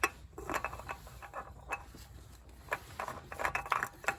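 Light irregular clicks, taps and scrapes of hands handling a new oil filter and threading it onto a lawn tractor engine.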